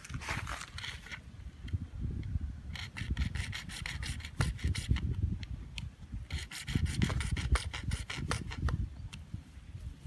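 Hand-held hacksaw blade sawing across blue PVC water pipe in quick, short back-and-forth strokes that come in spells.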